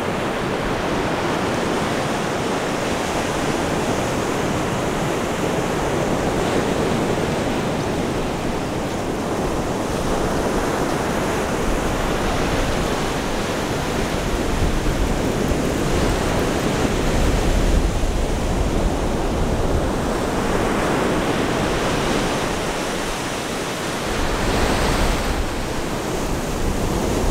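Ocean surf breaking and washing up the beach, swelling and easing with each wave. Wind rumbles on the microphone, heavier about halfway through.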